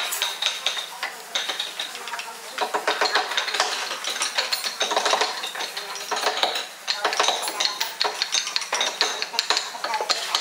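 Thin steel carving point scraping and picking at a small wooden carving, many quick scratchy strokes in spurts with brief pauses.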